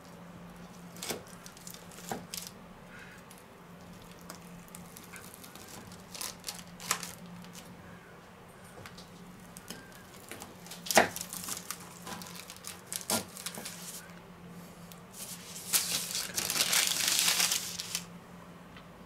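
A large kitchen knife cutting through a crisp baked almond slab on baking parchment: scattered crunches and knocks of the blade down onto the worktop, the sharpest about halfway through. Near the end, a longer stretch of parchment paper crinkling as the slab is shifted.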